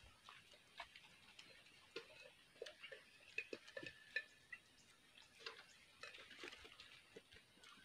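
Near silence with faint, scattered small clicks and ticks, a few a second, and a few brief high chirps in the middle.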